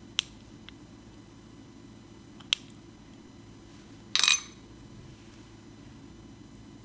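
A small round metal piping tip clicking sharply against a ceramic plate as it is pressed through soft jelly, twice, with a fainter tick between. About four seconds in comes a short, bright metallic clatter. A low steady hum runs underneath.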